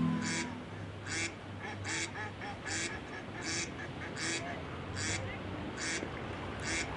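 Background music stops just after the start. Then a duck quacks in a steady series, a little more than one quack a second, over a steady rushing background.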